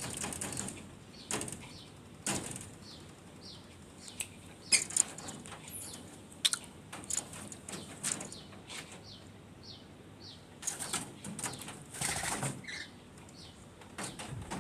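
Birds calling: a run of short falling chirps, about two a second, with louder sharp bursts of rustling and wing flapping in between, busiest near the end.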